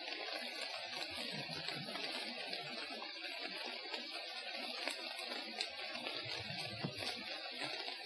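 Rain beginning to fall: a steady, even hiss, with scattered faint ticks and a low rumble about a second in and again near the end.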